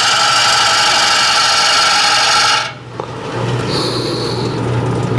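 Turning tool cutting a spinning green red oak bowl blank on a wood lathe, riding the bevel for a smooth cut; a steady loud cutting hiss that stops suddenly about two and a half seconds in as the tool comes off the wood, leaving the lathe motor's low hum.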